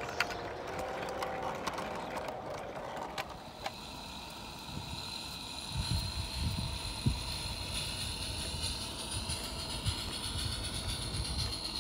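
Garden-railway model trains running on outdoor track: wagons rolling past with light clicks, then, after a cut, a small locomotive hauling coaches past with low rumbling knocks from the wheels over the track from about six seconds in. A thin steady high tone runs under the second part.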